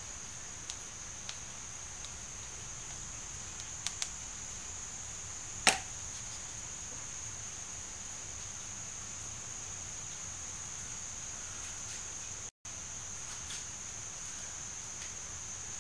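Light clicks of a plastic spoon against a plastic cup of paint, with one sharper tap about six seconds in, over a steady high-pitched drone.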